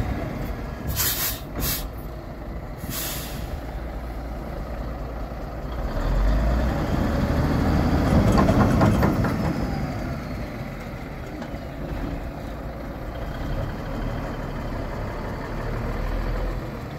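1978 Autocar dump truck's 400 Cummins diesel engine running, with three short, sharp air-brake hisses in the first few seconds. Around six seconds in the engine revs up louder, then eases back to a steady run by about ten seconds in.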